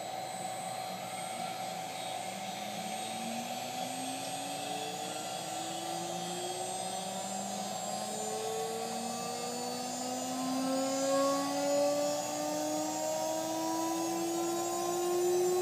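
Chinese VFD-driven router spindle spinning up slowly after a restart: a whine of several tones rising gradually in pitch over a steady hum, getting slightly louder toward the end.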